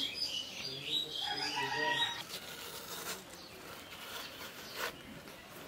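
A chicken calling for about the first two seconds. After that, a few short scrapes from a metal spoon digging out watermelon flesh.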